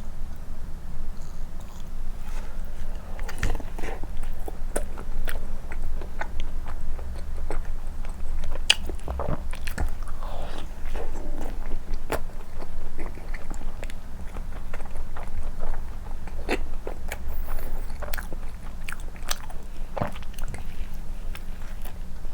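Close-miked chewing of soft cream bread soaked in milk, with many short, sharp wet mouth clicks and smacks. A steady low hum runs underneath.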